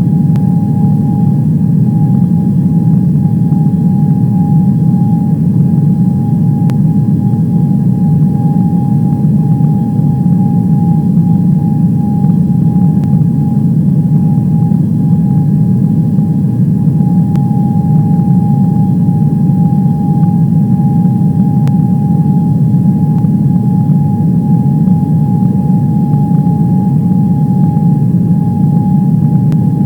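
Airliner cabin noise: a steady low rumble of jet engines and airflow, with a steady whine above it.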